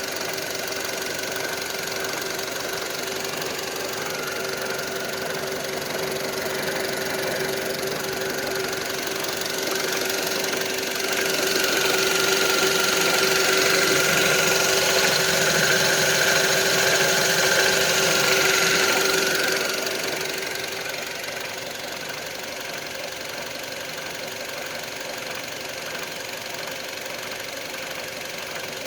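Skoda Octavia A7 1.6 engine running with a knock. It grows louder for several seconds in the middle, then settles back to a steady run.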